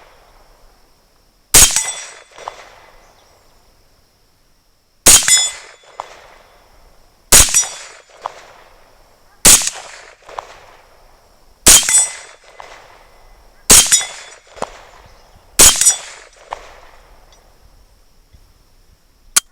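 Seven shots from a US M1 carbine firing .30 carbine surplus ball ammunition in slow semi-automatic fire, about one shot every two seconds, each with a short echo after it. A single sharp click comes near the end.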